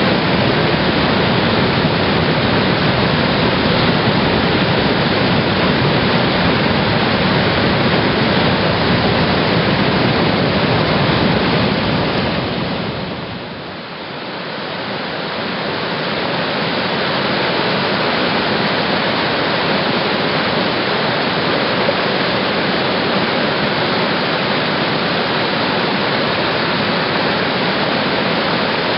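Steady rush of whitewater from a rapid's standing surf wave. It fades down briefly about halfway through and comes back.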